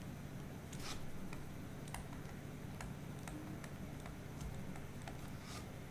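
Sparse, irregular faint clicks, about one a second, over a steady low hum.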